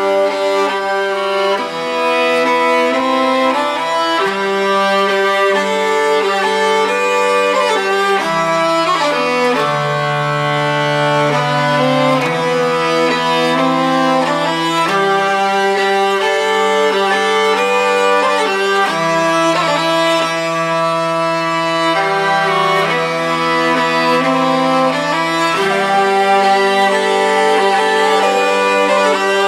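Background music of bowed strings: a violin melody over held lower notes that change every few seconds.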